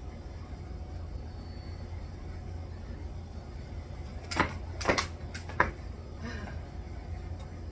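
A quick cluster of four or five sharp slaps from a jump rope striking the ground a little past the middle, over a steady low rumble.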